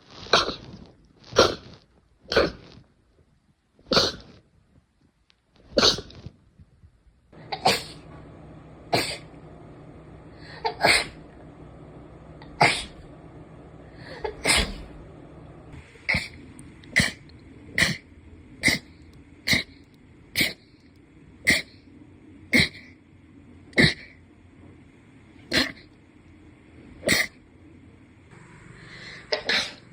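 A rapid series of short, sharp sneezes, about one to two seconds apart at first and coming faster, roughly one a second, in the second half.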